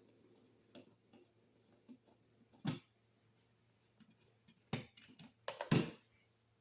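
Small metal hand tools and a screw being handled while a cover-plate screw is shortened: a few sharp separate clicks and snaps, the loudest pair near the end.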